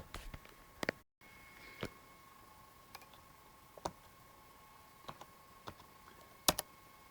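Scattered sharp clicks and taps, roughly one a second at irregular spacing, the loudest a double click near the end. A faint steady high whine runs underneath.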